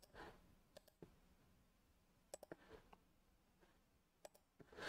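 Faint computer mouse button clicks: a dozen or so scattered single clicks, some in quick pairs and triples, over low room tone.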